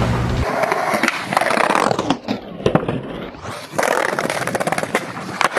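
Skateboard wheels rolling on pavement. The rolling drops out around the middle while the board clacks several times as it pops and lands, then the rolling resumes.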